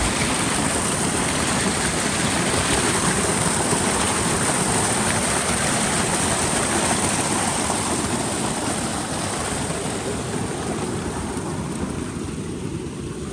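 Rain falling steadily, an even hiss that eases a little over the last few seconds.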